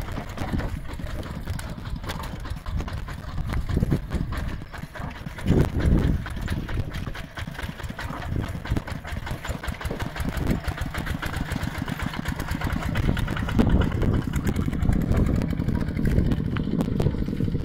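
Two-wheel walking tractor's single-cylinder diesel engine running steadily as it pulls a loaded trailer. It surges louder for a moment about six seconds in and grows louder again over the last few seconds.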